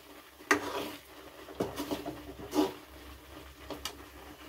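A spatula stirring and scraping a thick, bubbling kalakand mixture of milk, paneer and sugar in an aluminium kadhai, giving about five short scrapes and knocks against the pan.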